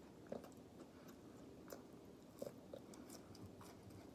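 Faint chewing of French fries: a few soft mouth clicks spread over about four seconds in a quiet room.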